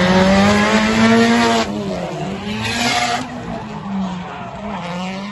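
Nissan 180SX drift car at high revs with its tyres squealing, the engine note climbing. About a second and a half in the revs and the tyre noise drop off sharply. The engine then rises and falls more lightly, with another short squeal near three seconds.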